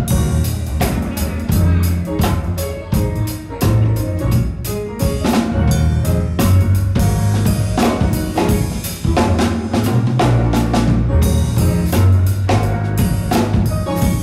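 Live gospel music: an electric keyboard and a drum kit playing a steady beat over a strong bass line.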